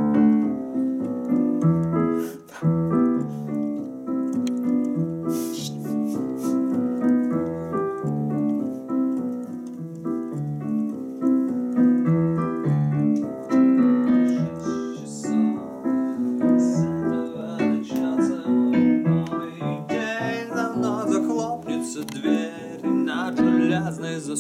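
Casio Privia digital piano played with both hands: a continuous flow of chords and melody notes.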